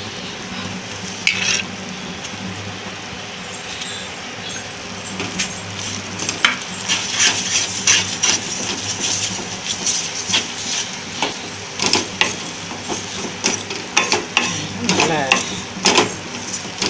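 Wooden spatula stirring and scraping grated coconut through hot sugar syrup in a pan, the mixture sizzling underneath. The scraping strokes come quicker and louder from about six seconds in.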